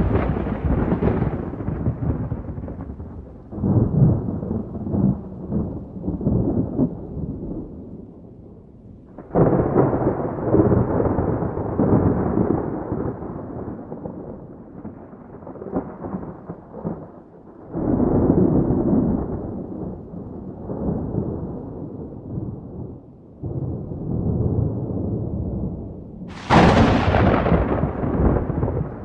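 Wind buffeting the phone's microphone outdoors: a low rumbling noise that comes and goes in gusts, with a sharper, hissier gust near the end.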